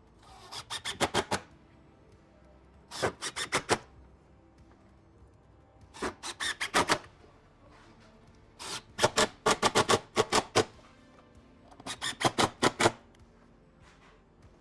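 Cordless impact driver driving screws through a wooden base rail into the stair string. It runs in five short bursts of about a second each, every burst a rapid series of clicks that grows louder as the screw goes home.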